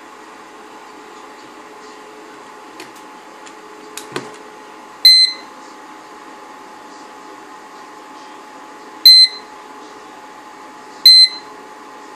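Three short, high-pitched electronic beeps, the first about five seconds in and the other two about two seconds apart near the end, over a steady electrical hum; a few light clicks come shortly before the first beep.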